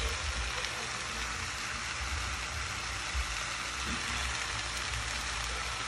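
Mixed vegetables frying in a frying pan on an electric coil stove: a steady sizzle, with a low rumble underneath.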